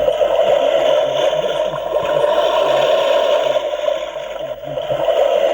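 Chinese-made alarm clock going off: a loud, harsh, rattling buzz that starts suddenly and holds steady.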